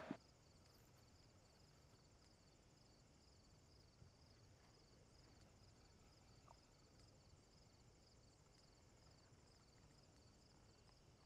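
Near silence, with faint insects chirping in a steady, high-pitched pulsing pattern.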